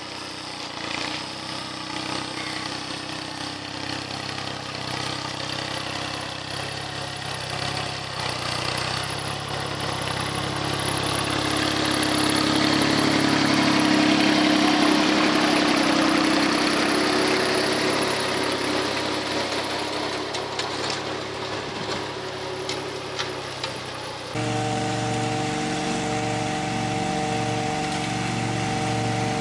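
Small tractor engine running steadily while the tractor works a tilled field, growing louder toward the middle as it comes close. About 24 seconds in the sound cuts to a riding lawn mower's engine running steadily.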